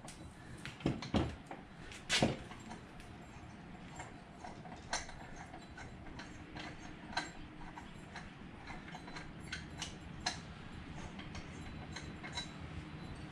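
Scattered light clicks and metallic taps of hand work at an ATV's rear wheel during tire removal, a few sharper knocks in the first couple of seconds, with a faint steady hum underneath from about halfway.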